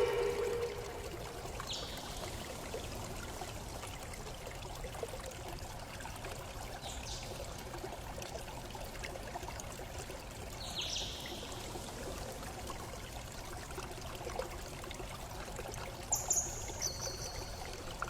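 Steady rushing hiss like running water, with a few short high chirps that fall in pitch, and two quick high notes stepping down near the end.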